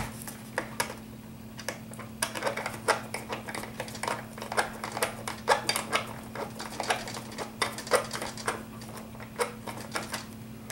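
Light, irregular clicking and clattering of small hard parts, screws and a screwdriver being handled while the landing gear is fitted, several clicks a second over a faint steady hum.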